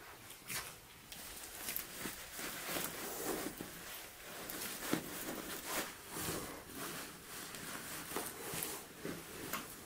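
Cloth rustling and swishing as a red fabric cover is pulled and worked onto a white stuffed bolster cushion, with soft handling knocks and one sharper tap about five seconds in.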